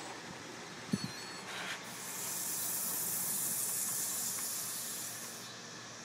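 DVR lathe running steadily at about 690 rpm, spinning a large disc. There are a couple of clicks about a second in. From about two seconds in, a loud high hiss of rushing air from the spinning disc rises, holds, and fades out near the end.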